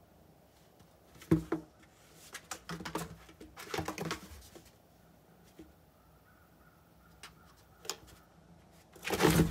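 Cardboard box scraping, rustling and knocking as cats move in and against it, in a few short scratchy bursts, the loudest near the end.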